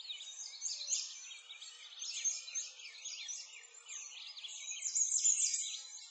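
Many birds chirping and singing at once: a continuous chorus of quick, high, overlapping chirps and trills.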